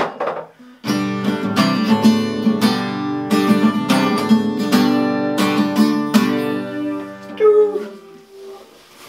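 Guitar strummed in a steady rhythm of chords, which stop about six seconds in and are left to ring out and fade.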